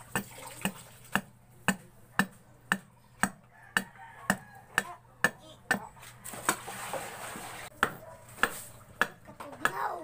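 Sharp wooden knocks about twice a second: a wooden mallet striking while wood is chipped out of a plank.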